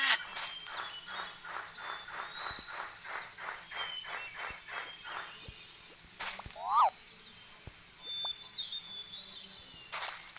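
Wild animal and bird calls: a run of evenly repeated calls, about three a second, for roughly five seconds, with high chirps and a few short, sharp noises in between.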